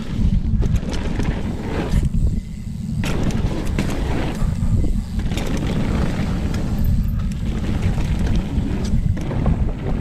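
Mountain bike riding fast down a dirt trail: a constant low rumble of tyres and air, broken by frequent sharp clacks and rattles from the bike over bumps.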